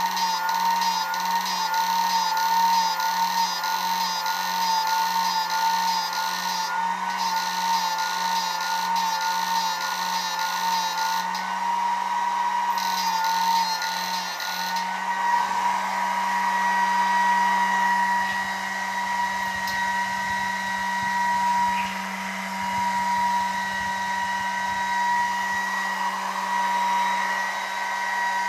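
A homemade high-voltage 'ultrasonic' inverter running under a lamp load: a high electrical whine with overtones over the rush of its high-speed cooling fan. For the first half the whine wobbles about twice a second with a fast high pulsing. About halfway through it settles into a steady tone.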